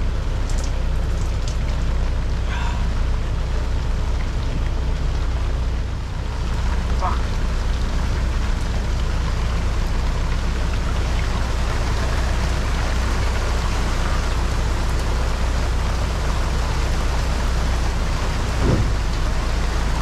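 Heavy squall rain falling steadily on a catamaran's hardtop roof and clear cockpit enclosure, an even hiss, with a low steady hum underneath.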